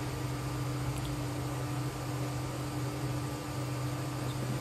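Steady low electrical hum with a constant hiss behind it, unchanging throughout.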